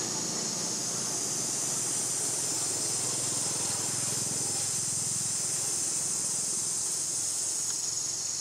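A steady, high-pitched insect chorus that holds an even drone throughout.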